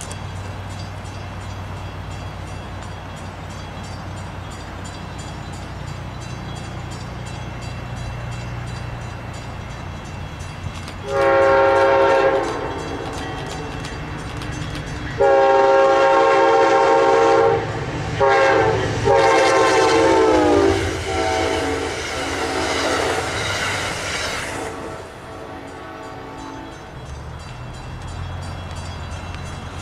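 Approaching locomotive's horn sounding the grade-crossing signal: long, long, short, long, the last blast sinking slightly in pitch as it trails off. A steady low rumble runs underneath.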